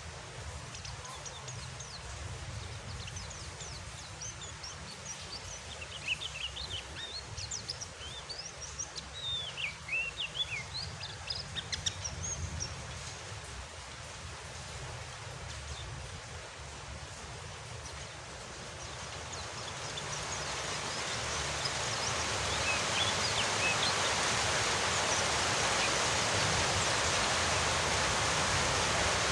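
Steady rain hiss with a white-eye (pleci) songbird chirping and twittering in quick high calls for several seconds. The rain grows louder about two-thirds of the way through and stays so.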